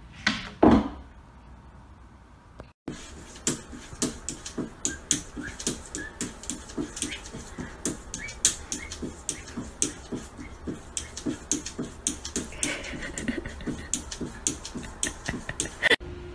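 A sudden loud thump about half a second in. Then a long run of sharp taps and clicks, uneven, about three a second, as a cat paws at a mirror.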